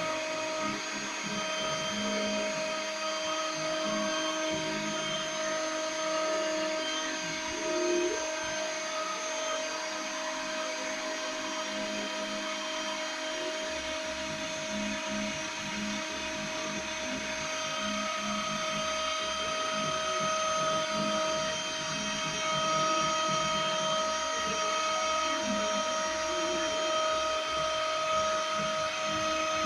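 CNC milling machine's spindle running with a steady high whine while milling a printed circuit board. A second, higher tone joins a little past halfway.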